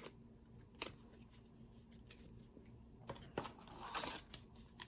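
Trading cards being handled: a few light clicks and taps as cards are picked up and set down, with soft rustling and ticking about three to four seconds in.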